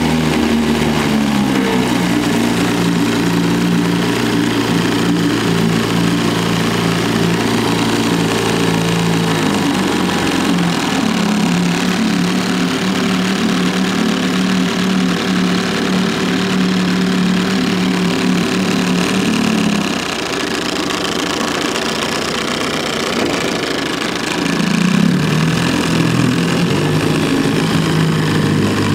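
1967 Evinrude Fisherman 6 hp two-stroke twin outboard motor running under way. Its pitch drops in the first two seconds and then holds steady; about twenty seconds in it eases off and gets quieter, then picks up again about five seconds later.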